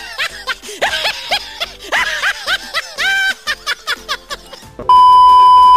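Dubbed-in comic laughter in quick rising-and-falling cackles over background music. About five seconds in it is cut by a loud, steady electronic beep lasting about a second.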